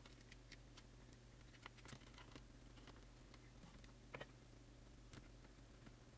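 Near silence with faint, scattered clicks and taps of fingers handling thin wires against a circuit board in a plastic casing; the clearest click comes a little past four seconds in.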